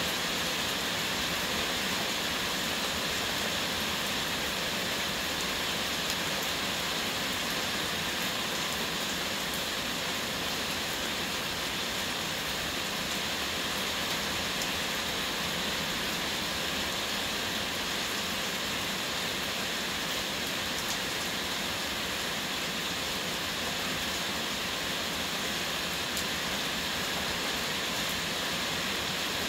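Heavy rain falling steadily, an even hiss with a few faint drop taps.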